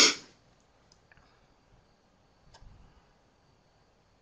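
A short burst of noise right at the start, then a few faint, scattered clicks of a computer mouse or keyboard as the slide is advanced, over quiet room tone.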